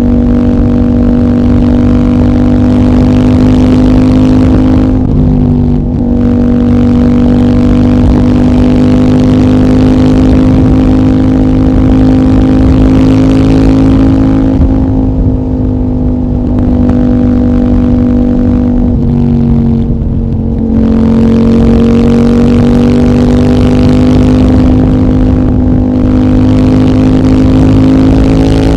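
CFMOTO 800NK's parallel-twin engine, decat with the stock muffler, running steadily under load and slowly rising in pitch. Its note drops briefly about five seconds in and again near twenty seconds, like gear changes.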